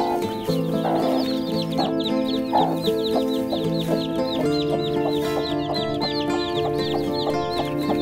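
Newly hatched chicks peeping in quick, high chirps, about four or five a second, over background music, while the broody hen gives a few short, rough clucks about a second in and again near two and a half seconds.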